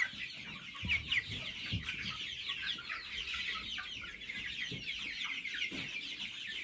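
A flock of young white chickens cheeping and clucking, with many short, high calls overlapping without a break.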